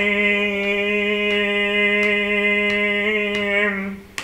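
A man's voice holds one long, steady sung note at the end of a Hindu devotional chant (bhajan), wavering slightly and fading out just before the end. Faint ticks come about every two-thirds of a second, and a sharp click falls at the very end.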